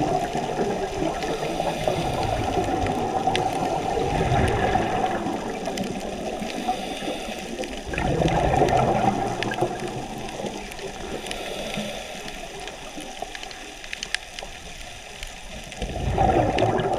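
Scuba diver's exhaled breath bubbling out of the regulator underwater, a gurgling rush that comes in long bursts about every eight seconds, with a few faint clicks between.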